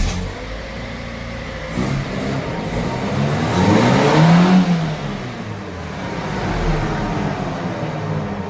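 Daewoo Nexia engine revving in gear, spinning the jacked-up front left wheel: the pitch climbs to a peak about four seconds in, then falls away. This is a run-up test for front hub bearing hum, and the front left hub bearing is found to hum and need replacement.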